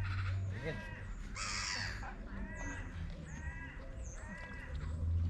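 Gulls calling over and over, a series of short arched squawking calls. About a second and a half in there is a brief rushing noise.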